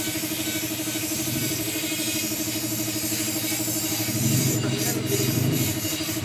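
An engine idling steadily, a regular pulsing drone that grows louder about four seconds in.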